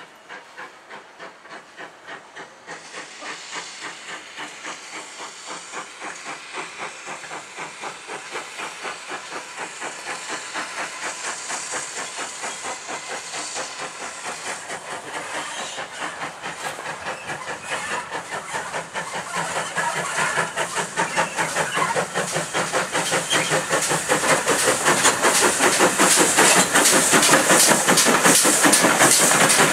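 GWR 8750-class 0-6-0 pannier tank steam locomotive working a passenger train, its exhaust chuffing in a regular beat with hissing steam. The beat grows steadily louder as the engine comes up and is loudest near the end, when it passes close by.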